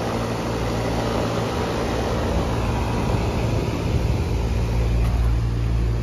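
Payne PH5 heat pump outdoor unit running in cool mode: the condenser fan blowing over the grille with the compressor's steady hum, a deeper low rumble building in the second half. It is running normally, described as working pretty good.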